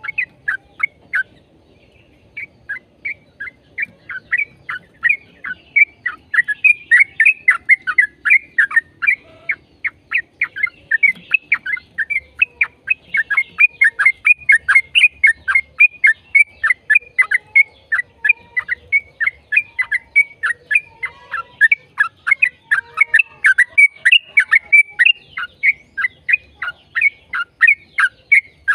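Yellow-vented bulbul (trucukan) singing a long, unbroken run of short, rapid chirping notes, several a second.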